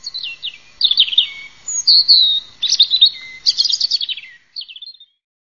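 Songbird singing: a quick string of loud chirps, falling sweeps and warbled trills that stops about five seconds in.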